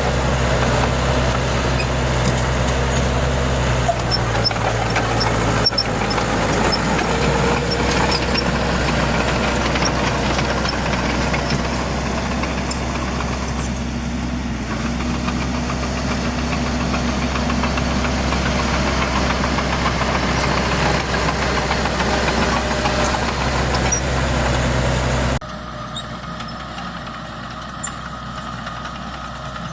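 Diesel engine of heavy earthmoving machinery running steadily under load, with light metallic ticks on top. About 25 seconds in it drops suddenly to a quieter, steady engine sound.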